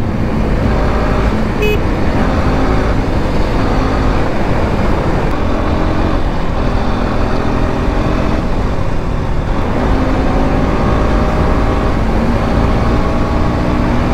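Motorcycle engine running at road speed, its pitch drifting gently up and down with the throttle, under a heavy low rush of wind on the microphone.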